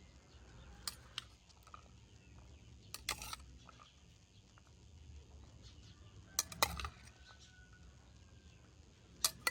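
Utensils clinking and knocking against dishes during food preparation: a few short, sharp clinks spread apart, the loudest cluster about two-thirds of the way through, over a low steady rumble.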